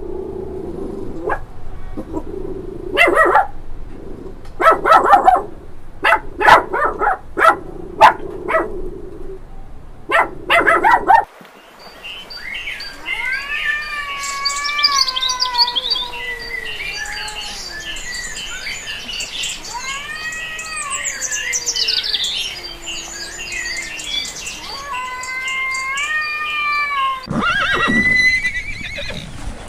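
A run of animal calls, several kinds one after another. For the first ten seconds or so there are short, loud calls. Then comes a long stretch of many high calls sounding together, each rising and falling.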